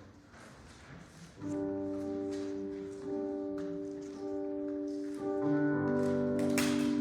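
Hymn introduction on a keyboard instrument: after a quiet pause, sustained chords begin about a second and a half in and grow fuller near the end. A short sharp noise cuts in shortly before the end.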